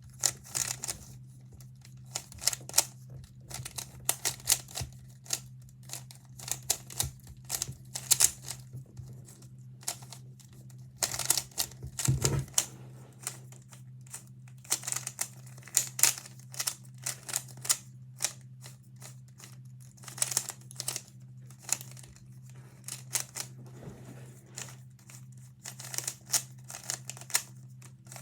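Rubik's Cube being turned fast by hand during a solve: its plastic layers snap and click in quick, irregular flurries with short pauses between. A steady low hum runs underneath.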